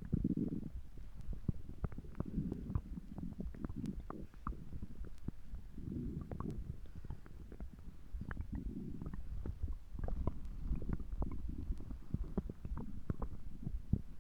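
A person's stomach gurgling continuously, in low rumbling swells every couple of seconds with many small pops and clicks through them.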